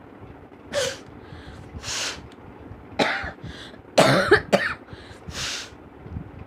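A person coughing and sneezing in a string of about five short bursts, the loudest a cluster about four seconds in, set off by a blade of grass pushed into the nose.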